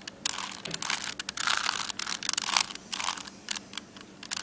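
Plastic Rubik's Cube layers twisted in quick succession: a dense run of clicks and rasping scrapes.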